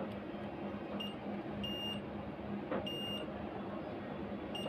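Digital multimeter's continuity buzzer giving four short high-pitched beeps at uneven intervals, the first very brief, as the probes are touched across parts on an inverter board. Each beep marks a short or low-resistance path through the part under test. A steady low hum runs underneath.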